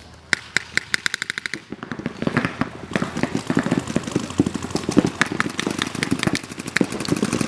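Paintball markers firing. It opens with a fast, even string of about ten shots a second, then gives way to many shots crowding over one another at an irregular pace.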